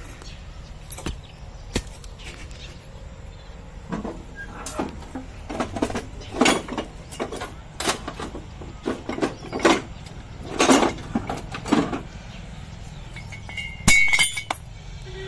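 Metal tools clanking and clinking as they are rummaged through and pulled out of a tractor's steel toolbox: a string of irregular knocks, with a louder clatter near the end.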